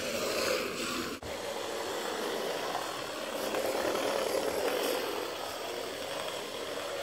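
Homemade RC car's small electric drive motor and gears whirring as it drives, its wheels rolling on a wooden floor, the sound swelling and easing as the car moves around. A brief break about a second in.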